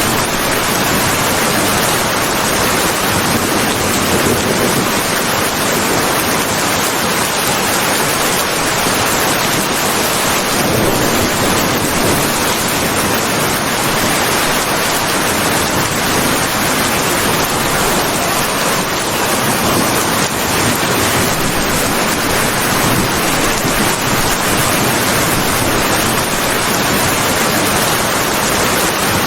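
Heavy rain falling steadily, a dense even hiss with no separate drops or thunder standing out.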